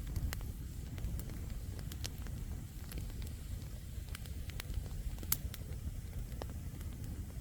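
Wood campfire burning, with scattered sharp crackles and pops from the burning logs over a steady low rumble, and one louder pop about five seconds in.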